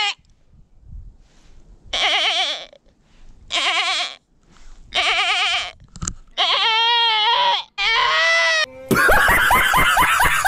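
Goat-like bleating: about six short, wavering bleats of under a second each, in quick succession. Near the end comes a louder, harsher scream-like burst.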